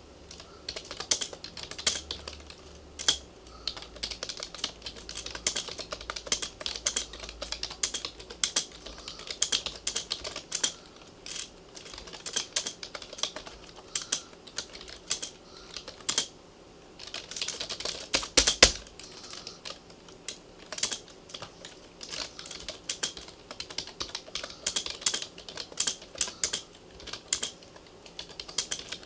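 Typing on a Compaq 6511-VA keyboard: irregular keystrokes clicking at varying speed, with a quick, louder flurry of keys about two-thirds of the way through.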